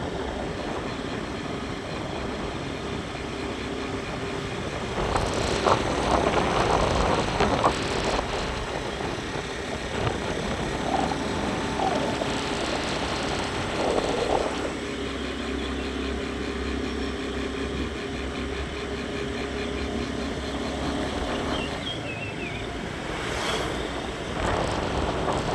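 A vehicle running along a road, with a steady engine hum and wind noise buffeting the microphone.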